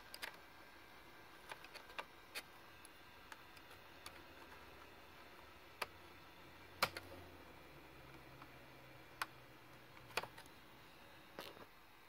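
Compaq Presario CQ60 laptop's internal speaker clicking at irregular intervals, about a dozen sharp clicks with the loudest a little before the middle. The clicking is the sign of a short in the speaker wires.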